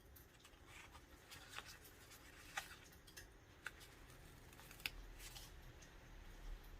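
Quiet desk work with paper and stickers on a Traveler's Notebook: soft rustles and scrapes, with three sharp clicks in the middle.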